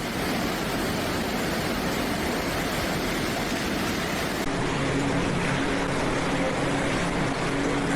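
Steady rushing noise of flowing floodwater. About halfway through, a steady low motor hum joins it.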